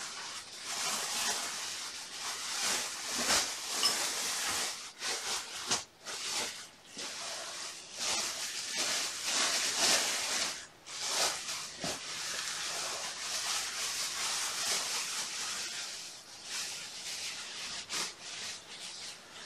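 Continuous scratchy rustling that swells and fades, with a few brief breaks.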